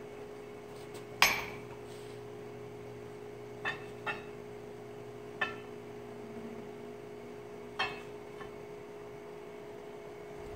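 Steel square bar clinking against the anvil as it is handled and turned, a handful of sharp metallic knocks that ring briefly, the loudest a little over a second in. A steady hum runs underneath.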